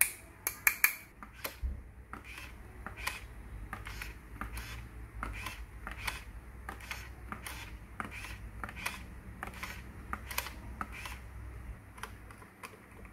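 Hard plastic parts of a toy RC dump truck clicking and snapping as they are handled and taken apart. Several sharp snaps in the first second, then lighter clicks and taps about twice a second, with a low hum underneath most of it.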